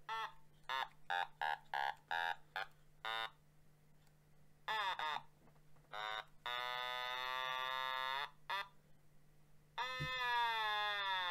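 Otamatone playing a quick run of short buzzy electronic notes at different pitches, then a held note about six seconds in. Near the end a long note slides steadily down in pitch as the finger glides along the stem.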